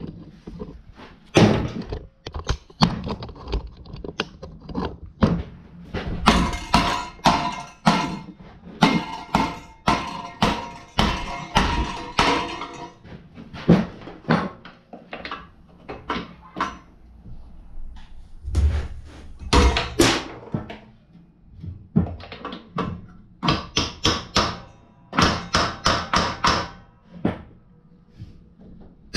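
Hand tools (wrenches and screwdrivers) clanking and knocking against each other and the metal bench top in an irregular string of knocks, some with a short metallic ring.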